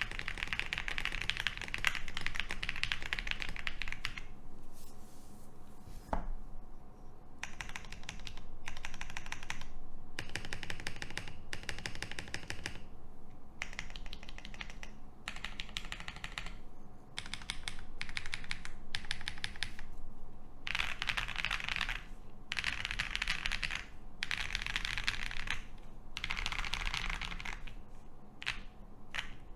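Typing on a gasket-mounted OwLabs Jelly Epoch mechanical keyboard with a polycarbonate plate, lubed Boba U4T tactile switches and PBT keycaps. The typing is steady for the first few seconds, then comes in bursts of about a second with short pauses between them.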